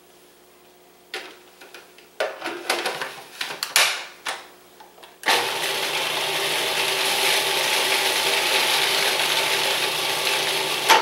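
Electric food processor chopping an olive-oil herb marinade: a few short irregular bursts in the first half, then a steady run of about six seconds that stops right at the end.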